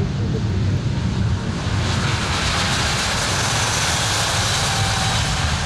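Boeing 787-9 Dreamliner's twin turbofan engines at takeoff power as the airliner accelerates down the runway past the listener. A heavy low rumble is joined about two seconds in by a loud high jet hiss as it draws level.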